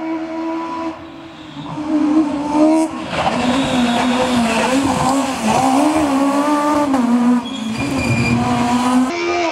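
Škoda Fabia rally cars at full throttle, engines revving hard, with the pitch rising and dropping as they shift and brake. The sound changes abruptly a few times as the footage cuts from one car to the next.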